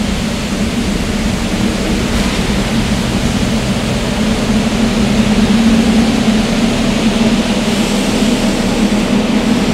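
R44 subway train at the platform, its equipment running with a steady low drone under a noisy hiss, growing a little louder about halfway through.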